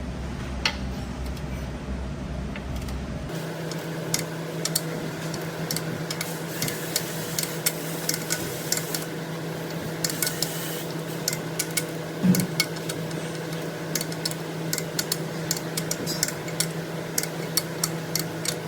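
Irregular metallic clicks from a wrench tightening and torquing the transmission's torque converter housing bolts, with a louder knock about 12 seconds in, over a steady hum.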